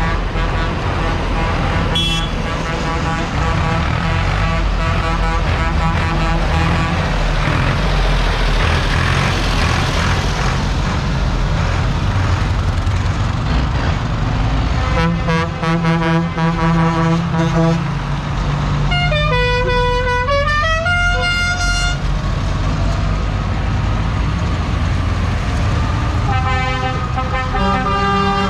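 Diesel engines of tractors and lorries rumbling steadily as they drive past one after another. Horns sound three times: a held horn for about three seconds halfway through, then a horn that climbs in pitch in steps, and another short blast near the end.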